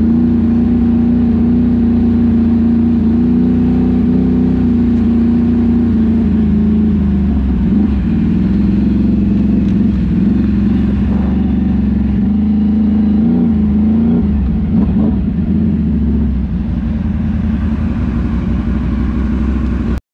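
Engine of the off-road vehicle carrying the camera, running steadily at a low cruising speed with a strong drone. It eases off briefly about eight seconds in and again around fifteen seconds, and cuts off suddenly near the end.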